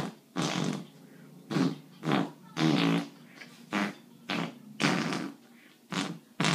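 A string of about ten short fart noises in an uneven rhythm, some of them with a buzzing pitch, played as a 'song'.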